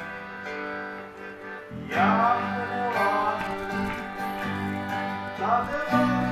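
Acoustic guitar strummed in a live band with bass and harmonium, the sustained chords ringing. A man's singing voice comes in about two seconds in and again near the end.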